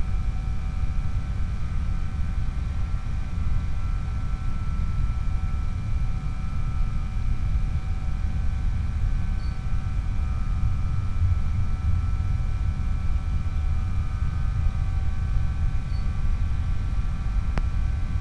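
Skyhunter FPV plane's electric motor and pusher propeller whining steadily at cruise throttle, with several steady high tones, over a heavy low rumble of wind noise.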